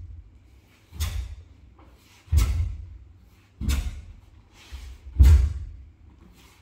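Bare feet stepping and stamping onto a wooden hall floor as the movements of a taekwondo pattern are performed. There are four sharp thuds, roughly one every one and a half seconds, each with a short echo from the hall.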